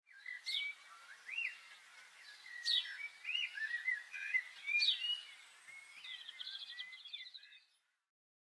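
Songbirds singing: warbling chirps with three sharp downward-sweeping whistles, and a rapid trill near the end. The birdsong fades in and stops shortly before the end.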